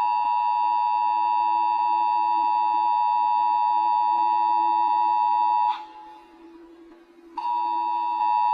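Emergency Alert System attention signal: a steady two-tone alarm sounding, breaking off about six seconds in and starting again a second and a half later. A fainter low steady tone carries on underneath, through the break as well.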